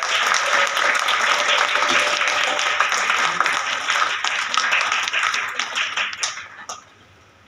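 Audience applauding, a dense run of many hands clapping that thins out about five seconds in and dies away with a few last separate claps near the end.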